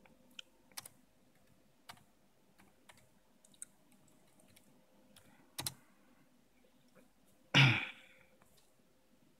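Keys tapped one at a time on a laptop keyboard as a password is typed: scattered single clicks, a louder double click about halfway, then one loud short thump near the end.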